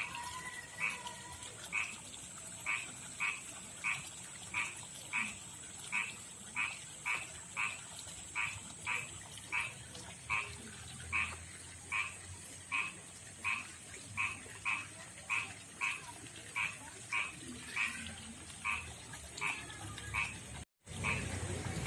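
Male frog calling to attract a female: a long run of short, evenly spaced croaks, roughly two a second.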